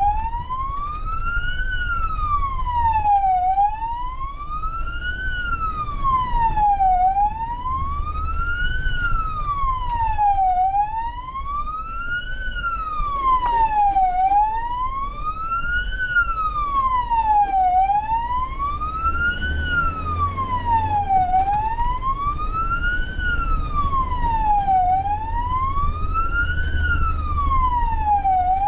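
Vehicle siren on a slow wail, its pitch rising and falling evenly about every three and a half seconds, over the low rumble of a vehicle driving on a dirt road.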